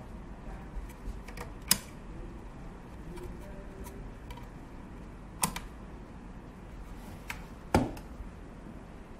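A few sharp, separate clicks and knocks from handling a metal-cased switching power supply, including its small voltage selector switch being slid over; the loudest, a double knock, comes near the end.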